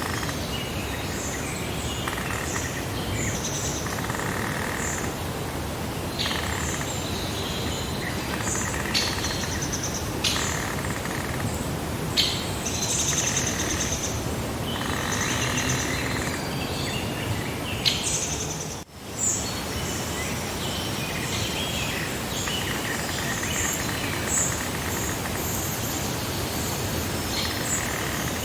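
Several birds chirping and calling in short, overlapping phrases over a steady wash of background noise, like a breeze through a meadow. The whole sound dips sharply for a moment about two-thirds of the way through.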